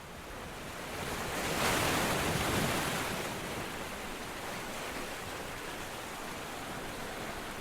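A steady rushing noise that swells up from silence, is loudest about two seconds in, then settles.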